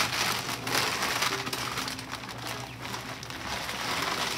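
Plastic feed bag of black oil sunflower seed crinkling and rustling as it is grabbed, lifted and handled, with the seed shifting inside.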